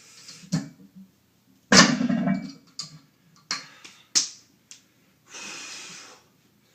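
A person breathing hard: a loud huff of breath about two seconds in and a longer breath out near the end, with several sharp clicks in between.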